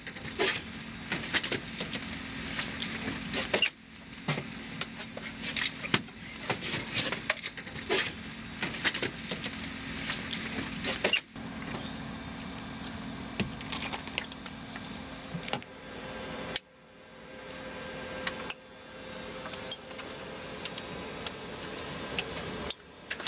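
Many short clicks, knocks and metallic clinks from flight gear, straps and the helicopter's fittings being handled, over a steady low hum; the sound breaks off and changes abruptly several times.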